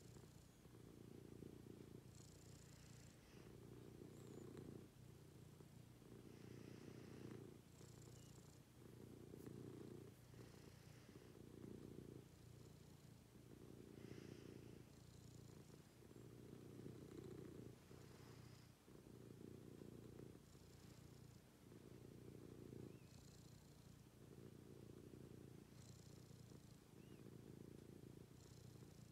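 Domestic cat purring, faint and continuous, swelling and easing with each breath about every one and a half seconds, with a soft breathy hiss between swells.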